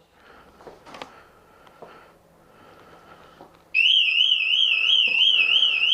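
WSDCAM bike alarm going off about two-thirds of the way in after a few faint clicks: a loud, high warbling siren tone that rises and falls about three to four times a second. The armed alarm has been triggered.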